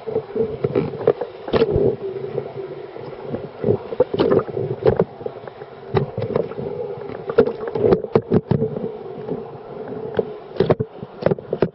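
Feet wading and splashing irregularly through a shallow stream in a limestone cave, over steady running water.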